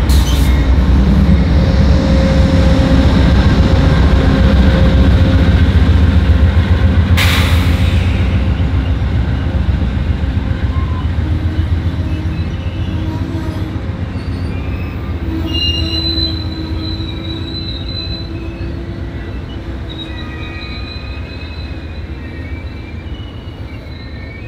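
Amtrak diesel passenger locomotive passing close with a heavy low rumble, followed by double-deck Superliner cars rolling past as the train slows into the station. A short hiss comes about seven seconds in, and in the second half thin high steady squeals set in as the train brakes while the rumble fades.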